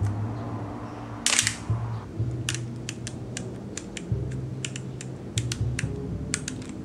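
Minolta α-9 film SLR's control dial being turned, giving a run of quick, irregular detent clicks as the shutter speed is stepped up to 1/12000. A louder handling rustle of the camera comes about a second in.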